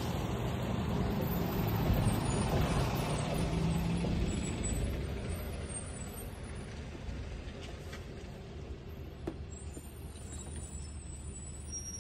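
A large road vehicle goes by, loudest over the first few seconds, then fading to a low steady rumble.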